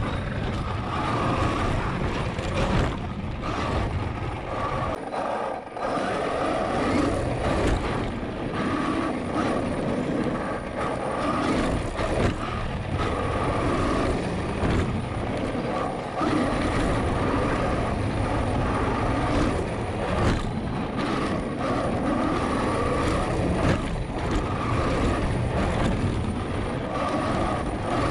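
Onboard sound of a Traxxas X-Maxx 8S RC monster truck driving on dirt: its Hobbywing Max6 brushless motor (5687, 1100kv) and WFO metal gears whine, rising and dropping away again and again as the throttle comes on and off, over a steady rumble of tyres and drivetrain.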